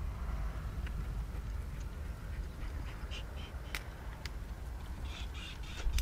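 Low, steady rumble of a loaded freight train's wheels on the rails as the train moves away, with a few sharp clicks. Birds give several short calls from about three seconds in.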